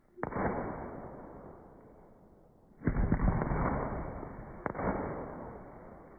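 A 96-shot consumer firework cake firing: a sharp report about a quarter second in, then a denser volley of several reports just before the midpoint and another single report a little later, each trailing off over a second or two.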